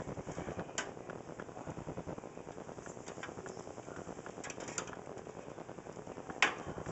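PC power-supply cables and their plastic connectors being handled: a few light clicks and taps, the sharpest and loudest about six and a half seconds in, over a steady background noise.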